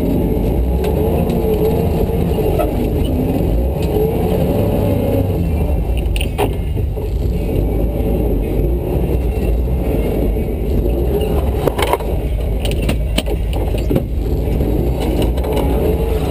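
Jeep engine running at crawling speed on a rocky trail, its revs wavering up and down. A few sharp knocks or scrapes come through, once about six seconds in and several between twelve and thirteen seconds in.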